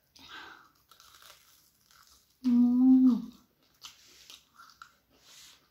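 Close-up chewing of a breaded, fried egg devil, soft crunching and mouth noises on and off. About two and a half seconds in comes a loud hummed "mmm" that holds one pitch and then falls, the eater's sound of enjoyment.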